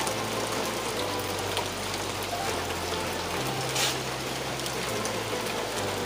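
Steady rain falling on foliage and stone paving: an even hiss.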